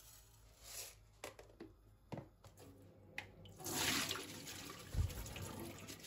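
Kitchen tap water running into a bowl of rice as it is rinsed at the sink. It comes on loudly about three and a half seconds in, with a dull knock of the bowl soon after. Light clicks and small knocks of kitchenware come before it.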